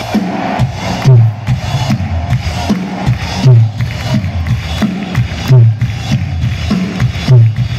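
Live rock drum kit solo through a stadium PA: deep tom and bass-drum hits, each dropping slightly in pitch, in a repeating pattern with the heaviest hit about every two seconds and lighter strokes between, over crowd noise.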